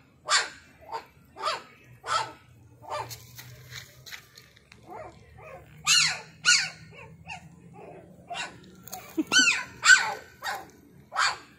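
Puppies yipping and barking with short, high-pitched yaps, over and over, with a longer yelp that rises and falls about nine seconds in.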